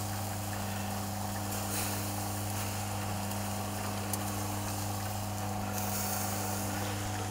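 Small minced-meat kebabs sizzling on a charcoal grill, a steady hiss over a low hum, with one faint click about four seconds in.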